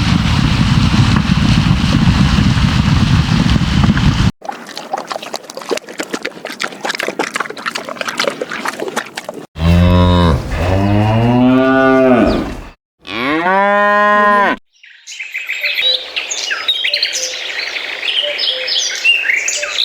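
A string of animal sounds: a loud rough noise for about four seconds, then fast clicking, then a cow mooing, a low drawn-out moo about halfway through followed by a shorter, higher call. High chirping follows near the end.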